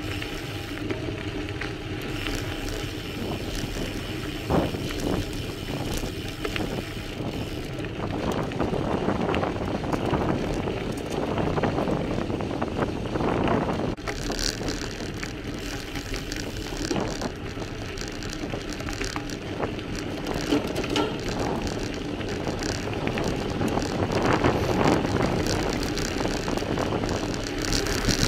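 Gravel bike tyres crunching over loose stones on a gravel climb, with the frame and parts rattling and clicking over the bumps, and some wind on the microphone.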